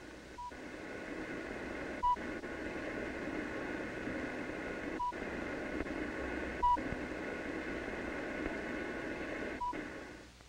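Electronic sound effect: steady radio-like static with five short high beeps at uneven intervals, fading out near the end.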